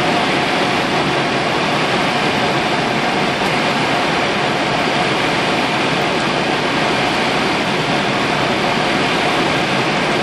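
Steady rushing noise on an Airbus flight deck during final approach: airflow, air conditioning and the engines at approach thrust blended into an even roar, with a faint steady tone running through it.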